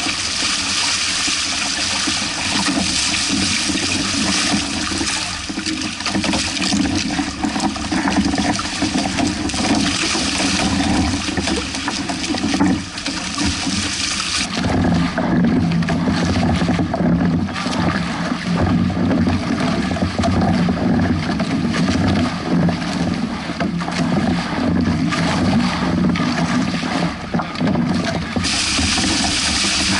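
Water rushing and splashing along the hulls of a Hobie 16 catamaran sailing through choppy waves. The high hiss drops away about halfway through, leaving a duller, lower rush, and comes back near the end.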